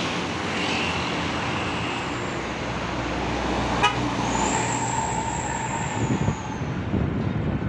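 Roadside traffic noise with a tour coach passing close by; as it passes, a horn sounds a steady tone for about two seconds that dips slightly in pitch as the coach moves away.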